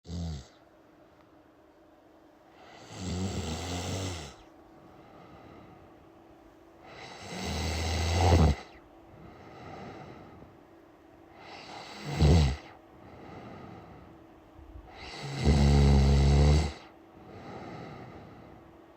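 A person snoring: four loud snores at a steady pace, about four seconds apart, with softer breaths between them.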